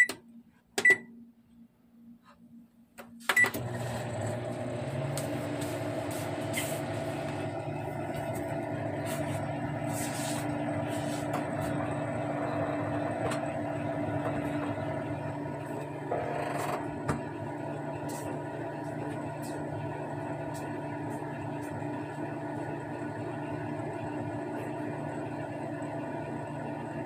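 Samsung microwave oven: a couple of short keypad beeps as the time is set, then the oven starts about three seconds in and runs with a steady hum.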